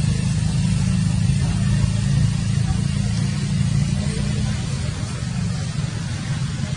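Low, steady rumble of a vehicle engine running at idle, easing slightly about two-thirds of the way through.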